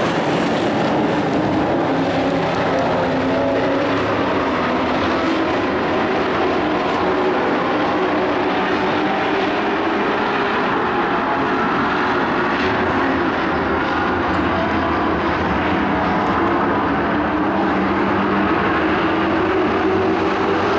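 A field of dirt-track race trucks running at racing speed, several engines overlapping in a steady loud drone with their notes wavering up and down as the trucks circle the oval.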